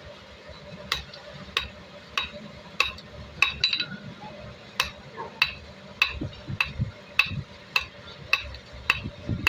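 Hammer striking steel on an anvil in a steady rhythm, a little under two blows a second, each blow with a short metallic ring. There is a brief pause a little past the middle.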